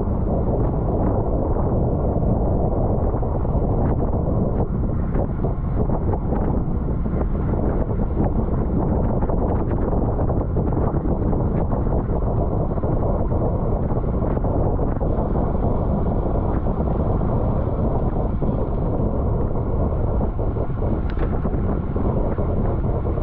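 Steady wind rushing and buffeting over the microphone of a camera on a bicycle moving at racing speed.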